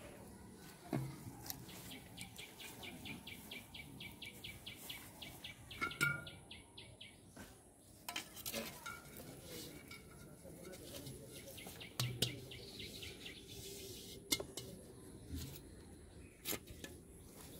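Earthenware pots and a plastic bottle being handled and set down on grass, with a few light knocks spread through. A rapid high clicking trill runs from about two to eight seconds in.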